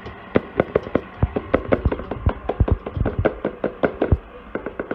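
A red plastic mixing bowl knocked over and over against the rim of a stand mixer's steel bowl to shake the last of the dry mix out: a fast, uneven run of sharp knocks that tails off near the end, over the steady hum of the running mixer.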